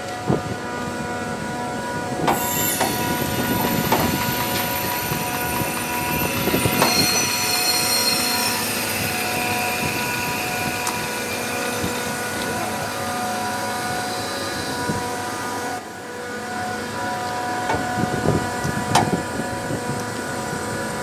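Trane RTAC air-cooled screw chiller running: a steady machine drone with several fixed whining tones. High-pitched squealing whistles come in about two seconds in and mostly fade by the middle, with a few short knocks.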